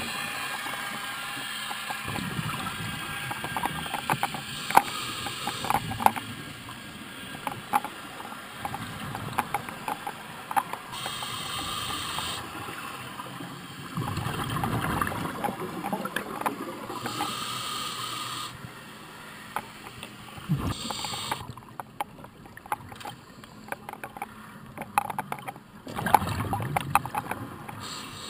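Scuba regulator breathing heard underwater through a camera housing: short hissing inhalations alternate with bursts of exhaled bubbles, full of small pops and clicks, a breath every few seconds.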